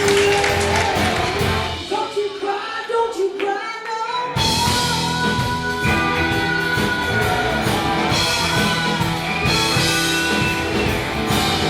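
Rock music with a singing voice and guitar. About two seconds in the bass and drums drop out, leaving the voice and higher instruments, and the full band comes crashing back in a little after four seconds.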